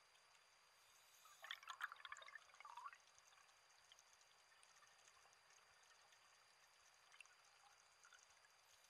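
A scuba diver's exhaled bubbles heard underwater: one burst of crackling, gurgling bubbles about a second and a half in, lasting about a second and a half. Otherwise a faint steady hiss.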